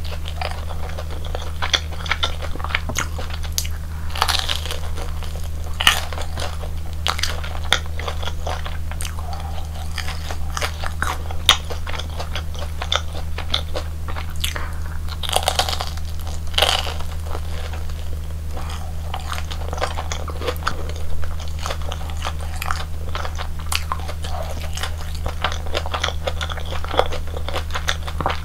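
Close-miked eating sounds: crisp crunching bites and chewing of crunchy food, a dense run of crackles with a few louder crunches, over a steady low hum.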